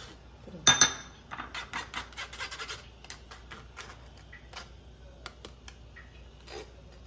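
A metal utensil clinking against a pot or bowl: two sharp, ringing clinks about a second in, then a quick run of taps and scrapes, then a few scattered clicks.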